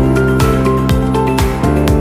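Music with a steady beat: held melodic notes over bass and a drum hit about every half second.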